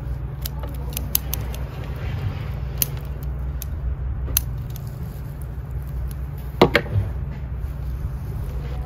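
Scattered small clicks of hand tools and a root ball being handled, with a sharper double knock about two thirds in, as a pair of scissors is set down on the table, over a steady low hum.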